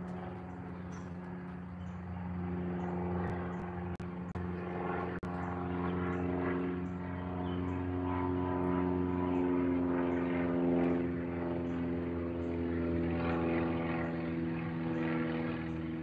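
A steady engine drone with several pitched tones, growing louder about two seconds in and then holding, with faint high ticks about twice a second.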